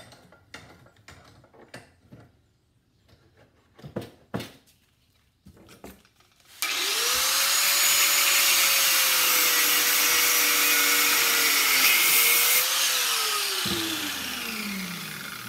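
Handheld angle grinder switched on about six and a half seconds in, cutting through the metal crimp clamp on a BBQ gas hose with a loud, hissing grind for about six seconds. It is then switched off and winds down with a falling pitch. A few light knocks come first as the hose is handled in the vise.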